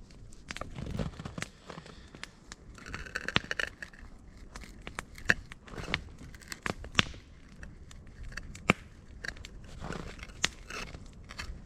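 Wood campfire crackling, with irregular sharp snaps and pops and a few short crunching sounds between them.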